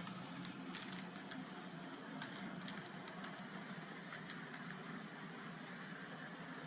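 A pair of N gauge model locomotives running together on the layout: a faint, steady motor hum with scattered light clicks.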